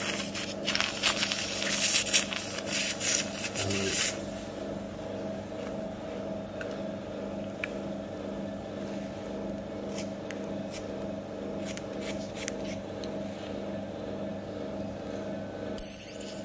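Surgical suction running with a steady motor hum; for the first four seconds the suction tip slurps blood and fluid out of the wound with a loud hissing crackle, then only the hum remains with a few faint clicks.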